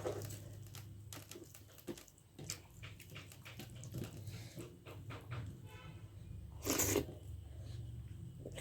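A person chewing and eating dhindo with nettle curry: many small, soft mouth clicks, with a brief louder hiss about seven seconds in.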